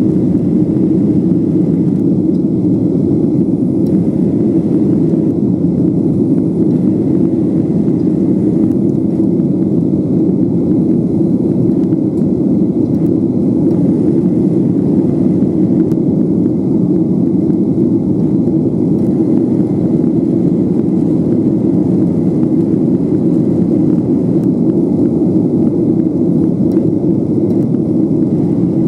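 Steady cabin noise of a Boeing 737-800 in flight, heard from a window seat: its CFM56-7B turbofans and the rush of air over the fuselage blend into an even, dense low rumble.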